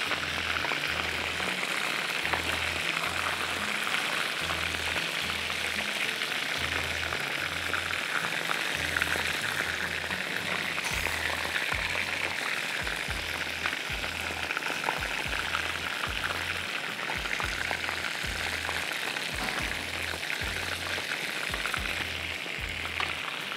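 Batter-coated fish pieces deep-frying in hot oil: a steady, dense sizzle.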